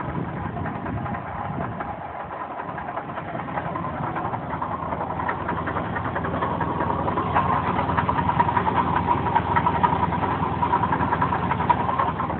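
3.8 L engine running with a rapid knock that sounds like a rod knock but which the owner traced to a failing water pump. The sound grows louder through the second half.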